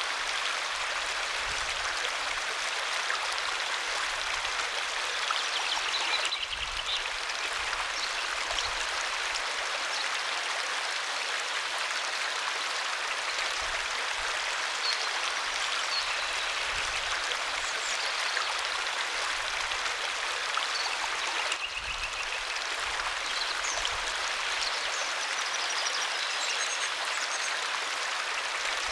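Waterfall: a steady rush and splash of falling water that briefly dips twice.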